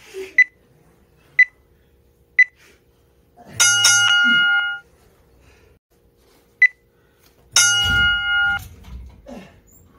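Gym interval timer beeping: three short beeps a second apart counting down, then a long, fuller beep about a second long that marks the change of round. Later a single short beep is followed by another long beep, with low thuds after it.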